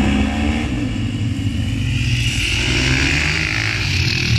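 Several motocross bikes' engines revving and accelerating together, the sound growing brighter and nearer from about halfway through as the bikes pass close by.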